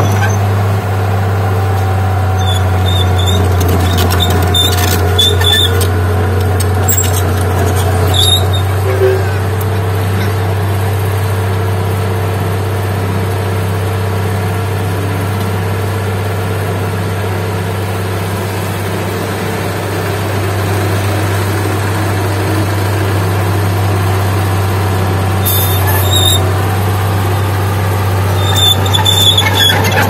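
Komatsu D31P crawler bulldozer's diesel engine running steadily as it pushes soil. A few short, high metal squeals come from the steel tracks, a couple early on and more near the end.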